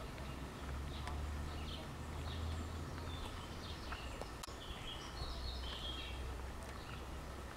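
Birds chirping in woodland: scattered short calls over a low steady rumble, with a few faint clicks.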